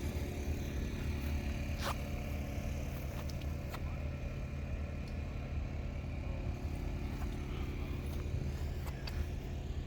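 An engine running steadily at an even idle, a low hum that does not change, with a few faint clicks.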